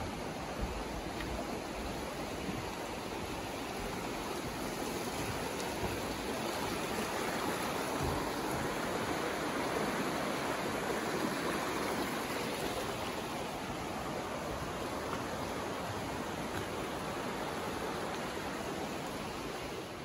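Shallow, rocky creek running over stones and riffles: a steady rush of water that grows a little louder in the middle and then eases again.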